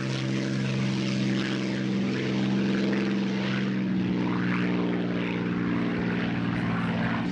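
Propeller engine of a Spitfire Mk IX, a Rolls-Royce Merlin V12, running at take-off power as the fighter climbs away after lifting off. It gives a steady drone whose pitch rises about halfway through.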